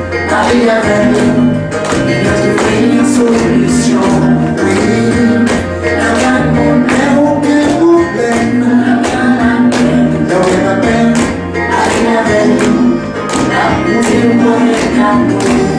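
A man singing into a handheld microphone over accompanying music with a steady beat and a repeating bass line.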